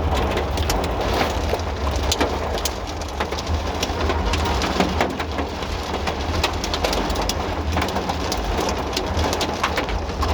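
Steady rain falling, with many individual drops striking close by as sharp little ticks over a continuous hiss.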